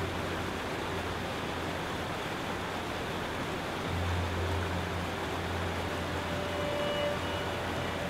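Steady rushing noise with a faint low hum that swells about halfway through, and a few faint held tones near the end.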